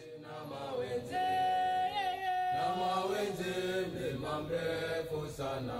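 Chanted vocal music: voices singing long held notes that slide from one pitch to the next.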